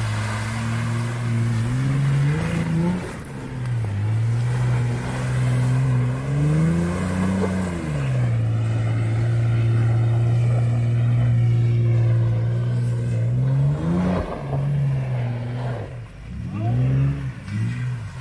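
Off-road truck engine revving as it ploughs through deep mud: the revs climb, hold steady for several seconds, and rise and fall again several times.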